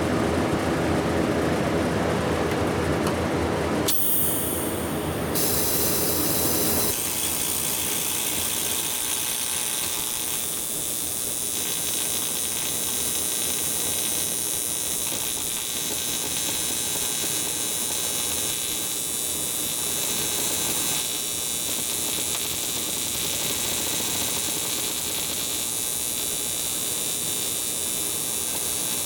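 TIG welding arc on an aluminium panhead cylinder head. It strikes with a click about four seconds in, then runs as a steady buzzing hiss. The head is cold and slow to melt.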